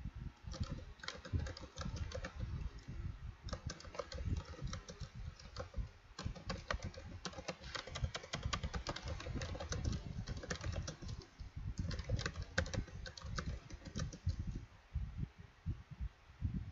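Typing on a computer keyboard: quick runs of key clicks broken by short pauses, stopping a couple of seconds before the end, over a low rumble.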